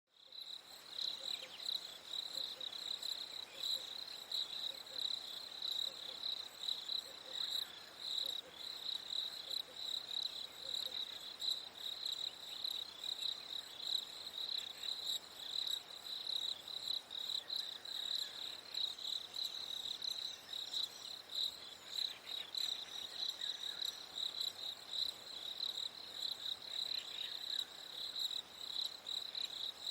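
Crickets chirping in a steady, rapid, high-pitched pulsing chorus.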